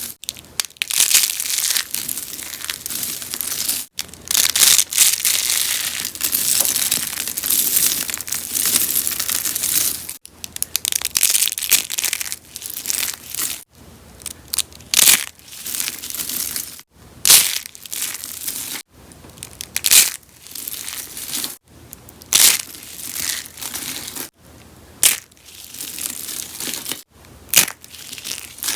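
Rose soap flowers being crushed by hand: a dry, crinkly crunching in a run of squeezes with brief breaks between them, long ones at first and shorter, sharper ones later.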